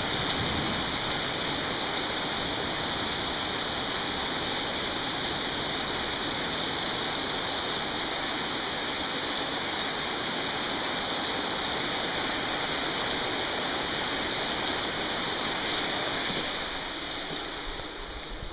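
Heavy rain pouring down in a steady, dense hiss that drops off a little near the end and then cuts off suddenly.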